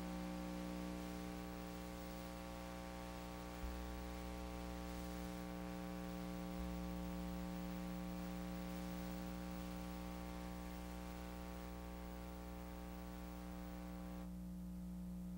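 Faint, steady electrical hum with a buzz of even overtones and a light tape hiss, typical of an old analogue videotape transfer. There are two soft low bumps about 3.5 and 6.5 seconds in, and the hiss drops away near the end.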